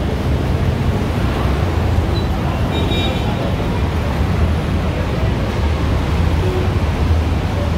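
Steady low rumble of road traffic from vehicles in the lane beside the listener, with a brief faint high tone about three seconds in.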